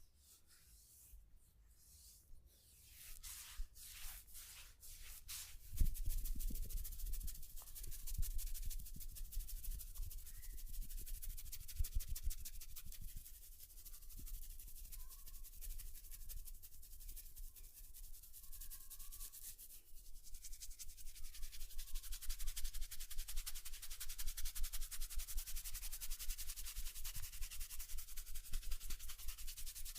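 Scratchy rubbing through hair during a head massage: a few separate strokes, then dense continuous scratching, turning about two-thirds of the way through into quick regular strokes, roughly three a second.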